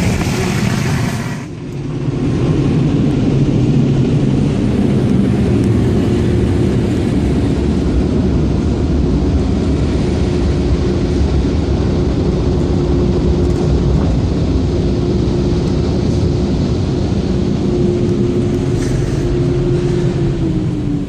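Car wash air-dryer blowers running: a loud rushing hiss that cuts off about a second and a half in, then a steady low drone with a constant whine that drops in pitch near the end as the blowers wind down.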